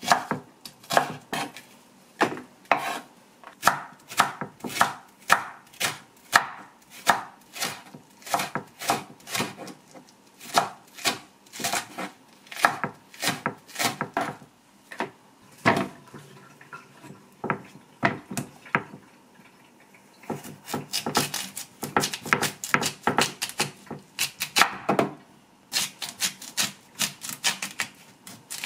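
Kitchen knife chopping food on a cutting board in steady strokes, about two a second, with a short lull midway, then quicker, denser chopping.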